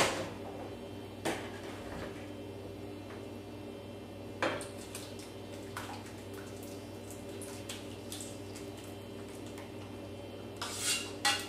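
A spoon scraping and knocking inside a steel pot as thick macaroni and cheese is tipped and pushed out into a glass baking dish: scattered light clicks, with a louder scrape near the end, over a steady low hum.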